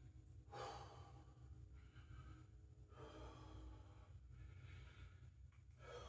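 Faint heavy breathing of a man catching his breath after jumping rope: about three long exhalations, a few seconds apart, over a steady low hum.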